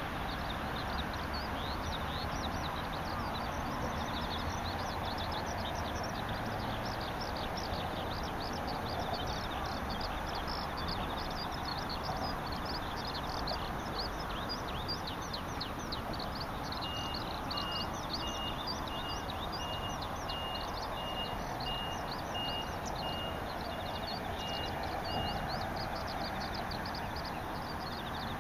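Birds and insects calling together: a dense, continuous run of short high chirps, joined from about 17 to 25 seconds in by a string of evenly spaced high peeps, over a steady low background noise.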